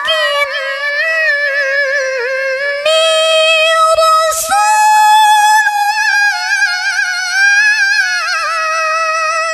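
A female Quran reciter (qari'ah) chanting tilawah solo into a microphone, holding long high notes with melismatic ornaments and stepping the pitch up between phrases. There is a quick breath about four and a half seconds in.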